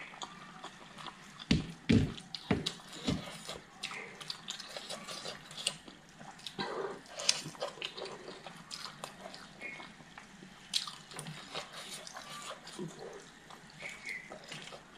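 Close-up eating sounds: wet chewing and mouth clicks, with soft squelching as fingers scoop sticky rice porridge and chicken. A few dull low thumps come between about one and a half and three seconds in.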